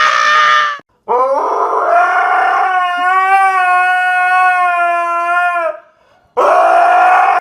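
A dog howling in long, held, pitched howls. The longest starts about a second in, rises at its start and then holds steady for nearly five seconds; a shorter howl follows near the end.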